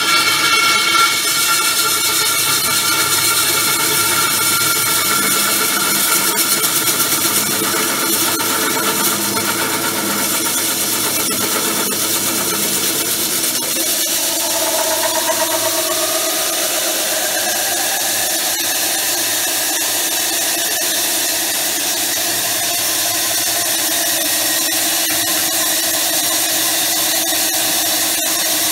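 Highland Park lapidary core drill's bit grinding into stone as it is fed down: a loud, steady grinding noise with high squealing tones. About halfway through the low rumble drops away and a squealing tone rises in pitch over a few seconds.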